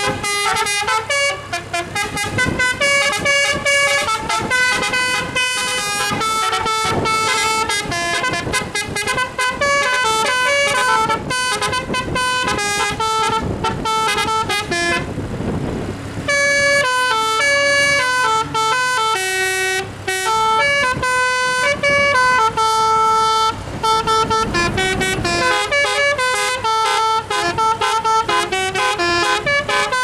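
A multi-note telolet horn on a Daihatsu Gran Max van playing a fast, stepping melody of chord-like horn notes. There is a short gap of rushing noise about halfway through, then the tune resumes.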